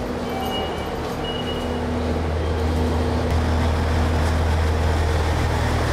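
Diesel railcar running, a steady low engine hum with a few steady tones above it, growing slightly louder. A few brief high tones sound in the first two seconds.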